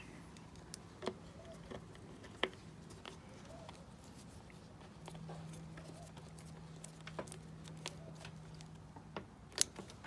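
Scattered small clicks and taps as a screwdriver drives a screw into a dishwasher's plastic sump assembly and the plastic parts are handled. A faint steady hum comes in about halfway through and stops near the end.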